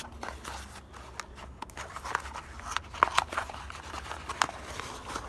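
Scattered clicks, taps and scrapes of small objects being handled, with no speech, over a faint low hum.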